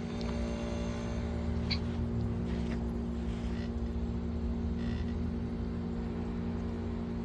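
1970s Emerson Quiet Cool 5000 BTU window air conditioner running with a steady electrical hum. Its compressor is running and the unit still holds Freon, while the fan motor, blocked by a bird nest, strains to turn. A few light ticks sound over the hum.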